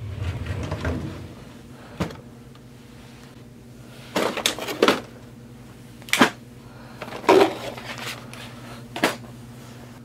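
Several separate knocks and short clatters over a steady low hum: a rumble at the start, a sharp knock about two seconds in, a cluster of clattering around the middle, and single knocks near the end.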